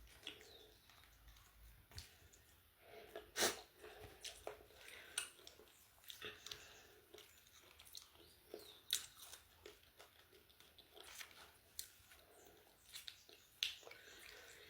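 A person chewing and crunching crispy fried chicken chicharrón close to the microphone. Sharp crunches come at irregular intervals, the loudest about three seconds in.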